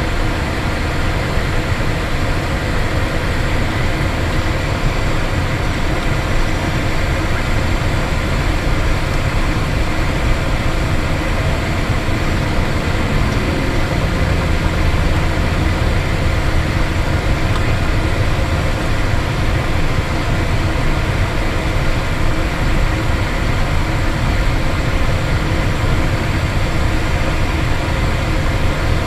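Cessna Citation Bravo's twin Pratt & Whitney PW530A turbofan engines running steadily at taxi power, heard inside the cockpit as a loud, even rushing drone with faint steady whine tones in it.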